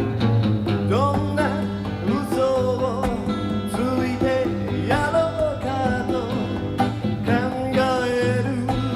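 Acoustic guitar music from an old cassette recording, with a lead line of bending, sliding notes over a steady bass.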